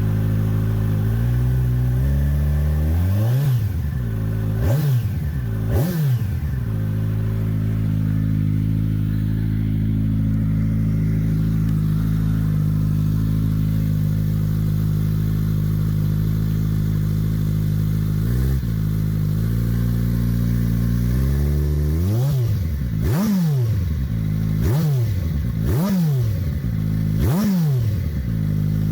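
Kawasaki Ninja 1000SX's inline-four engine running without its slip-on exhaust, still warming up after a cold start: a steady idle blipped up and dropping straight back, three quick revs a few seconds in, one near the middle, and a rapid run of about six revs near the end. The exhaust is noticeably louder and deeper than the stock setup.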